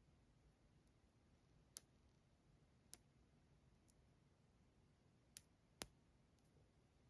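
Near silence broken by five short, sharp clicks spaced irregularly over the seconds, the last one the loudest. The nail drill is not running.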